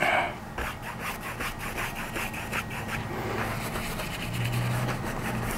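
Paintbrush bristles scrubbing oil paint back and forth across a stretched canvas in quick repeated strokes, laying color on.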